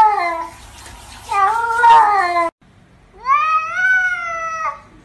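Cats meowing in drawn-out, word-like calls. Two falling meows come in the first two and a half seconds. Then, after a brief gap, a tabby gives one long meow that rises and then holds, the kind owners hear as "I love you".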